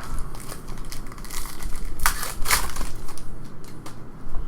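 Basketball trading cards being handled and sorted through by hand, rustling, with two louder strokes about two seconds in.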